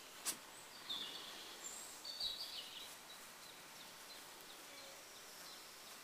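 Faint outdoor ambience with a few short, high bird chirps in the first half, and a brief rustle of a grass blade being picked just after the start.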